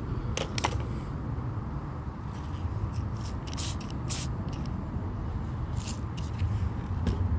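A tire plug being worked into a car tire's puncture with a plug insertion tool: a few short scraping and hissing sounds over a steady low rumble.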